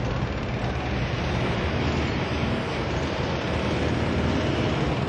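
Steady engine-like mechanical drone with a constant hiss, holding an even level throughout.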